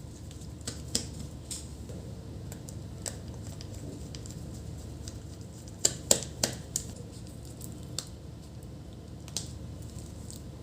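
Scattered small clicks and taps from handling laptop parts while the old battery is refitted in an Asus Zenbook UX430, with a quick cluster of sharper clicks about six seconds in, over a steady low hum.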